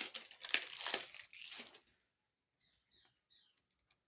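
Packaging crinkling and rustling as it is handled, in quick bursts for about the first two seconds, followed by three faint short chirps.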